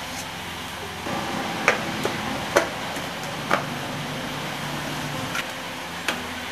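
Plastic clicks and knocks as the lid is fitted onto the jar of a small electric food chopper: a handful of sharp clicks spaced about a second apart, over a steady low hum.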